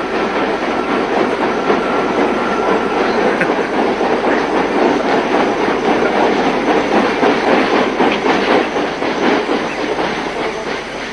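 A train's wagons rolling past, their wheels clattering rhythmically over the rail joints. The sound eases a little near the end.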